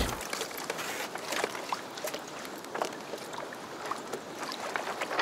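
Water washing along the hull of a Hobie Adventure Island sailing kayak under way, a steady hiss with scattered small splashes and ticks.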